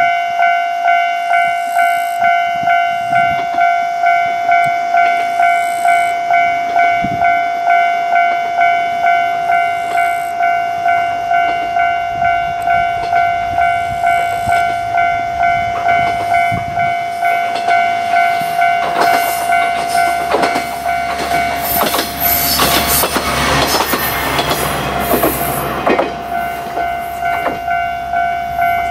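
A level-crossing warning bell ringing in a steady repeating pulse while a Tenryū Hamanako Railroad diesel railcar approaches and passes. The railcar's engine rumble and wheel clatter over the rail joints build up from about two-thirds of the way in, peak a few seconds before the end, then fade.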